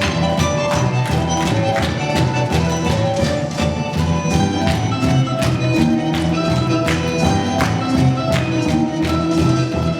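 Instrumental music with a steady beat of struck percussion over sustained pitched notes.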